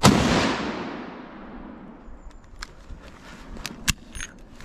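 A single gunshot, its echo rolling and dying away over about two seconds. A few light clicks follow, one sharp one near the end.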